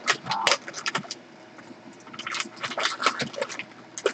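Small plastic parts of a Shopkins toy vending machine clicking and scraping as they are handled and fitted together, in two quick runs of clicks, the first in the opening second and the second about two seconds in.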